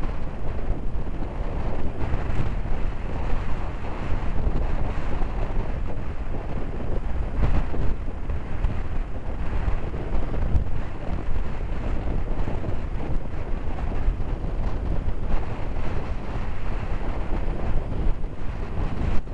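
Strong wind buffeting the microphone: a steady, gusty low rumble.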